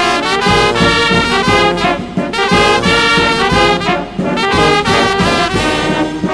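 Instrumental music led by brass horns, playing a melody over a steady beat.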